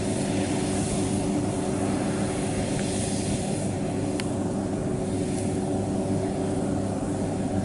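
Kubota combine harvester running steadily with an even engine drone and mechanical noise, as it works through the rice.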